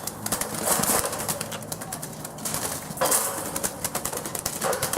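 A pigeon beating its wings in rapid bursts of flapping, the loudest about a second in and again from about three seconds.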